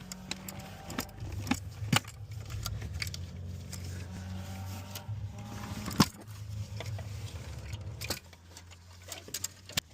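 Scattered metallic clicks and clinks of parts and tools being handled, over a low steady hum that cuts off about eight seconds in.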